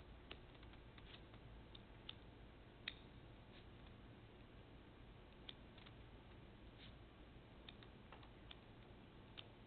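Near silence, broken by faint scattered clicks and ticks of a flexible putty knife working silicone sealant into the end of a lane seam. One sharper click comes about three seconds in.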